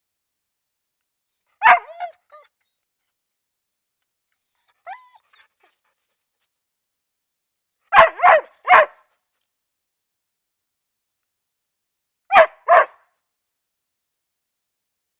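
A dog barking in short groups: a single bark, a faint whine, then three quick barks, then two more.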